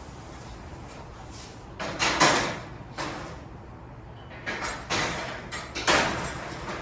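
A sectional garage door panel being pivoted into its steel tracks: the panel and its rollers scrape and rumble in the track in several bursts, about two seconds in and again from about four and a half seconds on.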